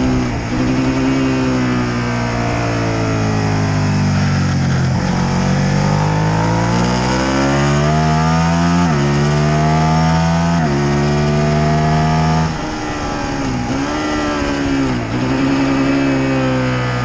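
Motorcycle engine heard on board at speed, pulling hard with its pitch climbing through the gears: two upshifts, each a sudden drop in pitch, then the throttle is shut and the revs dip and recover twice as it slows for a corner. Wind rush runs underneath.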